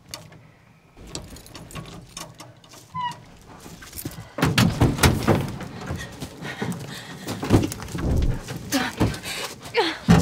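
Clicks, knocks and thuds from the cab of an old pickup truck as its driver's door is worked open, growing busier and louder about four seconds in, with a falling squeak near the end.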